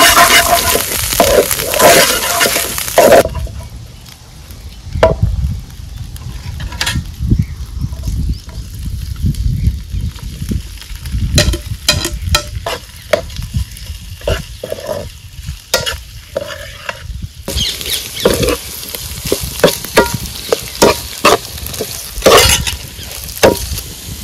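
Food sizzling in hot oil in a pan as it is stirred, with a spoon clicking and scraping against the pan. The sizzle cuts off about three seconds in, leaving scattered knocks and scrapes. It comes back abruptly about seventeen seconds in.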